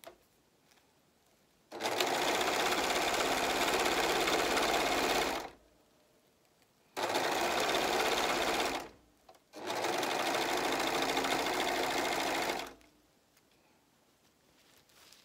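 Four-thread serger (overlocker) stitching and trimming a seam in sequined fabric. It runs in three bursts, about three and a half, two and three seconds long, with short pauses between.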